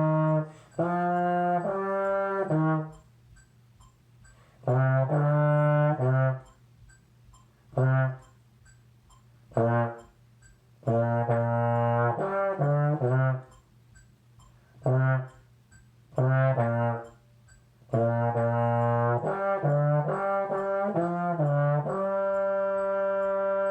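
Solo trombone playing a band part in phrases of held and short detached notes separated by rests. A metronome clicks faintly along at 136 beats per minute.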